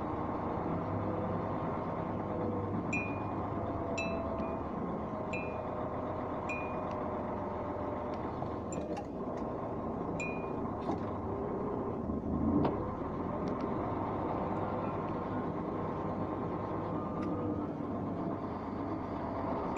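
Vehicle running along a rough, rutted dirt track: steady engine and road rumble, with small metallic clinks about once every second or so through the first half, and a single louder bump about twelve seconds in.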